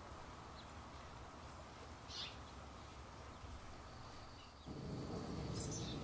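Two short, high bird chirps about three and a half seconds apart, over a faint low background hum that gets louder near the end.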